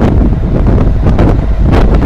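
Wind buffeting the microphone over the low rumble of an approaching Freightliner Class 66 diesel locomotive hauling a container train.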